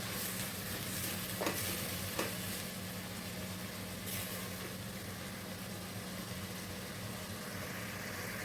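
Onions and tomatoes sizzling in hot oil in a pan while being stirred, with two short knocks of the spoon against the pan about one and a half and two seconds in.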